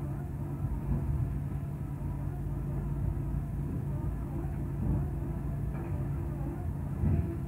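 Cat MH3022 material handler's diesel engine and a waste shredder running together: a steady low drone with a hum. About seven seconds in there is a louder thud as the grab drops a load of waste into the shredder.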